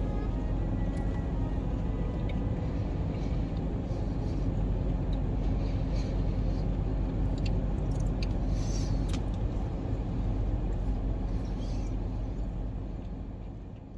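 Steady low rumble inside a car's cabin, with a few faint clicks around the middle. The sound fades out near the end.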